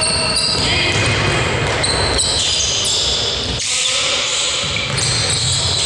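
Basketball being dribbled on a sports-hall floor during play, echoing in the large hall, with short high squeaks from sneakers on the court.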